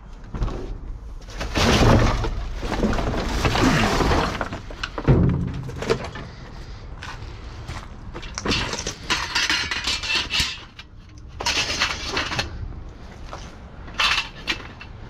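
Scrap metal and plastic pieces clattering and crashing as they are pulled apart and thrown onto sorting piles, with repeated sharp impacts.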